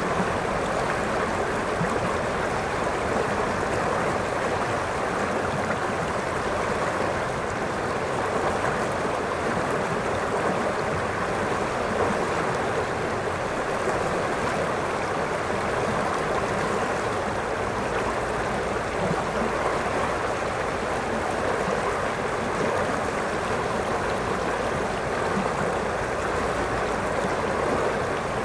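The Calapooia River rushing over a shallow, rocky riffle: a steady, even churn of moving water with no breaks or changes.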